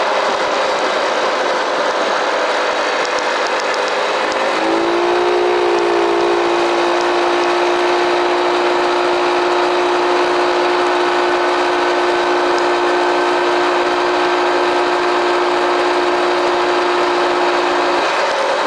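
Arctic Cat mini bike's small engine running while riding, with wind rushing past. Its pitch rises about four seconds in as it speeds up, holds steady, and drops just before the end.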